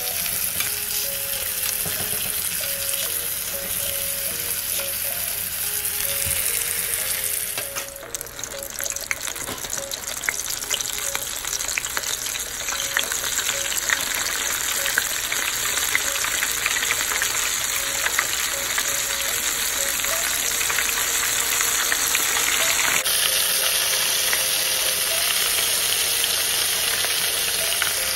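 Butter sizzling steadily in a cast-iron skillet as a ribeye steak fries and is basted with a spoon. After a cut about eight seconds in, hot oil bubbles and crackles hard in a saucepan as food deep-fries, with many sharp pops.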